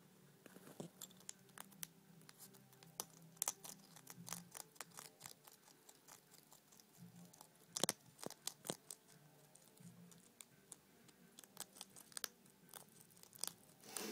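African pygmy hedgehog crunching dry kibble: a quick, irregular run of small crisp crunches, loudest just past halfway through.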